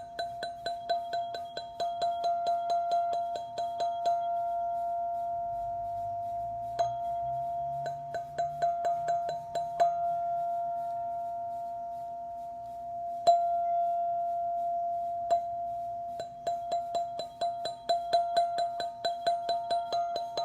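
Black ZenTube chime ringing with one sustained tone, struck in runs of rapid strokes at about five a second. The runs come near the start, a little before the middle and through the last few seconds, with a couple of single strikes left ringing in between.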